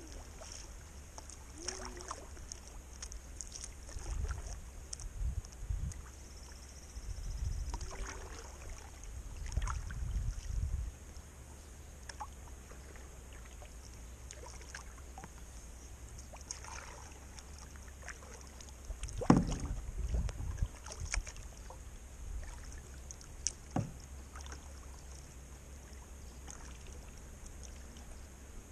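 Kayak paddling on calm river water: irregular paddle strokes and small splashes, with low rumbles and scattered knocks from the hull, and one sharp knock about two-thirds of the way through.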